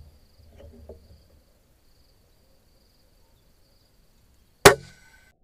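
A single shot from an FX Impact M3 PCP air rifle fitted with a Reflex Douxsilencer, firing a 36-grain slug: one sharp crack about four and a half seconds in, with a short ring after it. Before it there is a click and faint knocks from handling the rifle.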